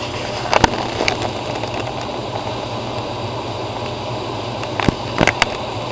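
Steady low mechanical hum, with a few sharp clicks and knocks: a pair about half a second and a second in, and a cluster near the end, from the handheld camera being moved and handled.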